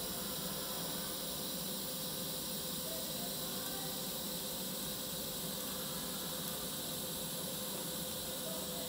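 TIG welding arc on 304 stainless steel tubing, giving a steady, even hiss with faint steady tones, with argon shielding and purge gas flowing.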